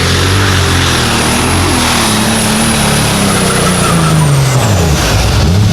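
Light super stock pulling tractor's engine running hard under load, then winding down in pitch over the last couple of seconds as the throttle comes off. A high whine falls along with it.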